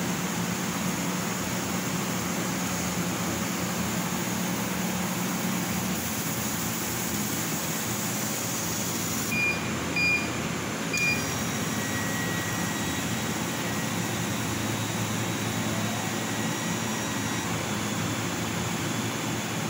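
CNC laser cutting machine running steadily as it cuts a sheet: a constant hum and rush of air from its fan and air assist. About halfway through, three short high beeps sound.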